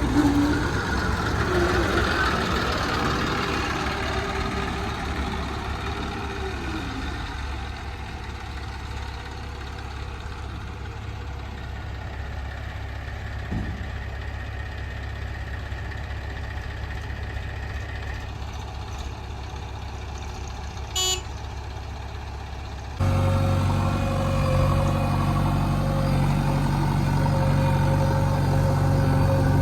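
Diesel engines of a JCB 3DX backhoe loader and a tipper truck running at a work site, changing in pitch in the first few seconds. About two-thirds of the way through there is a brief high-pitched toot. Near the end the sound cuts abruptly to a louder, deeper engine running steadily.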